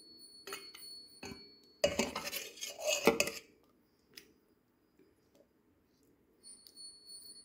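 A metal spoon clinking and scraping against a stainless steel bowl as thick raita is stirred: a few light clinks, then a louder stretch of scraping about two to three and a half seconds in, then quiet.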